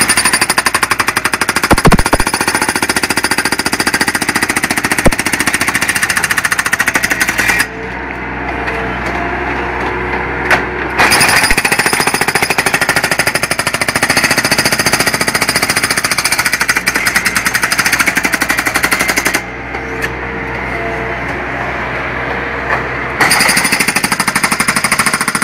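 Skid-steer-mounted hydraulic breaker hammering in rapid blows. It stops twice for a few seconds while the skid steer keeps running, then starts hammering again.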